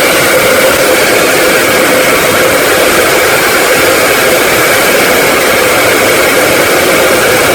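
Electric hand dryer running steadily, a loud rush of blown air with a constant motor whine.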